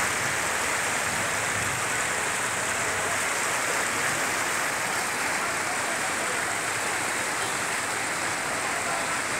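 Steady rushing of a muddy river running high after a night's flood.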